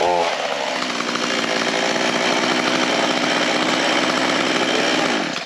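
Stanley chainsaw running steadily.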